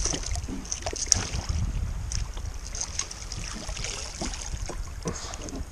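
Wind buffeting the microphone over water sounds around a kayak, with scattered small clicks and splashes.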